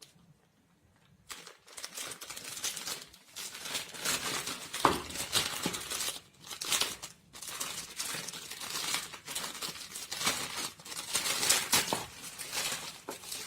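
Phone-box packaging being torn open and crumpled by hand: continuous crinkling crackle with sharper tearing and rustling noises, starting about a second in.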